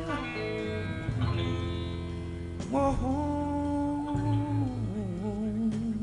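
Rock song, an instrumental stretch with guitar over a steady bass line, the melody moving in long held notes with vibrato.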